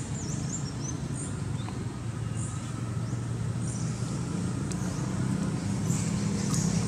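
Steady low rumble of a motor vehicle's engine running nearby, growing a little louder near the end. A few quick, high chirps sound at the start.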